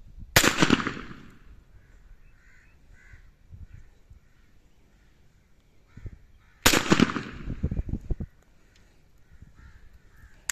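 Two bursts of rapid automatic fire from a chrome AK-style 30-bore (7.62×25 mm Tokarev) pistol. The first is short, about half a second in. The second is longer, about a second and a half, starting near seven seconds.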